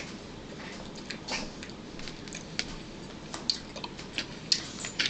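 Quiet eating sounds at a table: chewing and mouth smacks, with scattered light clicks of a spoon against a plastic bowl.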